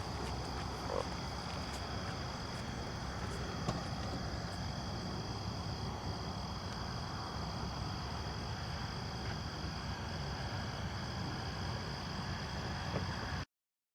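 Steady high-pitched chorus of crickets or other insects trilling over a low background rumble, with a few faint clicks; it cuts off suddenly near the end.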